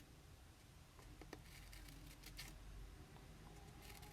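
Near silence: room tone with a few faint, brief rustles and clicks of a folded sheet of printer paper being handled, about a second in and again a little past two seconds.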